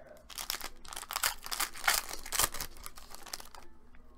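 A trading-card pack's plastic wrapper being crinkled and torn open by hand. It is a dense, crackly rustle that lasts about three seconds.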